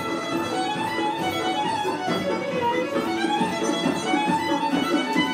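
Fiddle playing a lively Irish dance tune, quick notes running on without a break.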